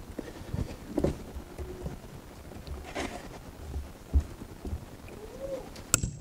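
Scattered soft knocks and rustling, with a sharp click near the end.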